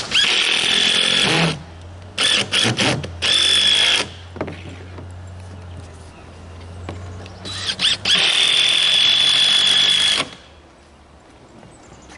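Power drill running in bursts with a steady high whine: a run of about a second and a half, then a string of quick short blips and a brief run, and a longer run of about two seconds later on.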